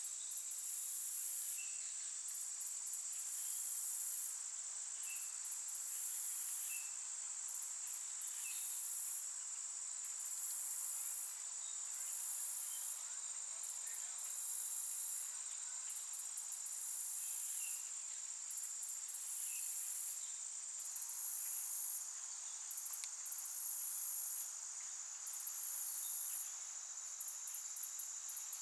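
Chorus of insects calling: a very high trill that comes in bursts about a second long, repeating without a break, over a steady high-pitched drone.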